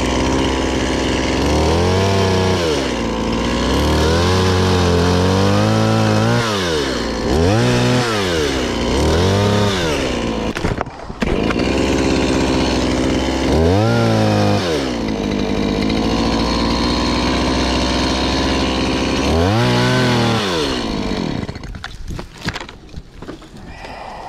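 Chainsaw engine revving up and down again and again, dropping back to idle between revs, as it cuts tree limbs. About three seconds before the end it winds down and stops.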